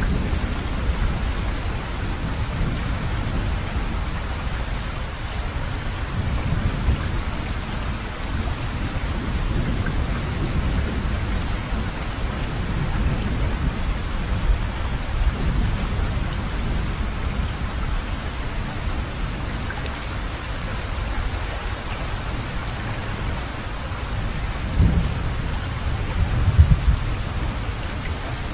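Heavy rain falling steadily with low thunder rumbling throughout, and two louder thunder surges near the end.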